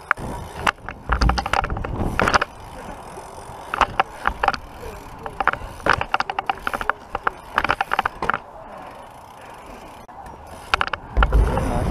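Plastic GoPro housing rattling and clattering in irregular bursts while a BMX bike rolls over tarmac, with tyre rumble and a couple of heavy low bumps. The rattle is the loose camera case, which the rider calls a horrible noise.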